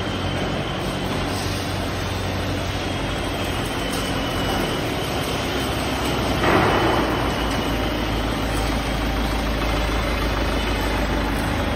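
Steel-fabrication workshop noise: steady machinery hum with a general din, and one louder burst of noise about six and a half seconds in.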